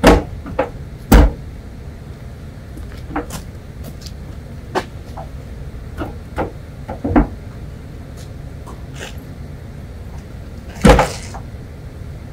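Scattered sharp knocks and clicks of hardware being handled, about a dozen in all, the loudest right at the start, about a second in, about seven seconds in, and a longer rattling one about eleven seconds in, over a steady low rumble.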